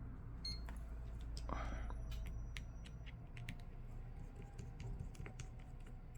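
Light, irregular clicks and ticks of a precision screwdriver working the small screws out of a smartphone's bottom frame, with a brief scratchy rustle about a second and a half in.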